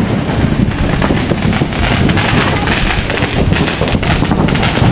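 Strong wind buffeting an action camera's microphone: a steady loud rumble with gusty crackle.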